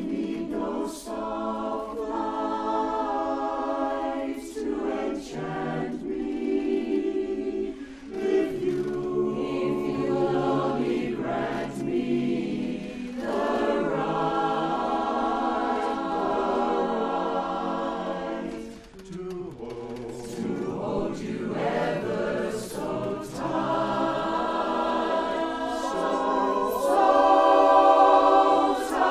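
Mixed-voice barbershop chorus singing a cappella in close four-part harmony, phrase after phrase with short breaks between them, swelling to its loudest near the end.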